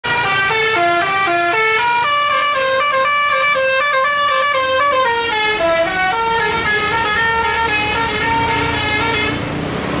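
Telolet Basuri multi-tone bus horn on a Budiman coach playing a melody of stepping notes, stopping about nine seconds in and leaving engine and road noise.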